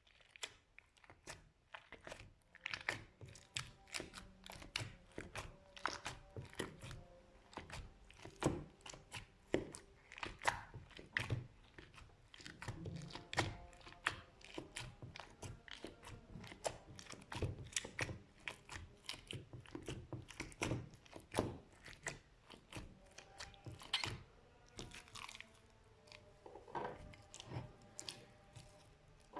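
Slime being worked and squeezed, giving dense, irregular crackling and popping clicks.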